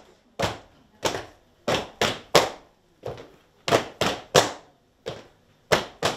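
Folk dancers' boots stamping on a tiled floor in a men's circle dance, with no music: about a dozen sharp stamps, often in quick pairs, each with a short ringing echo.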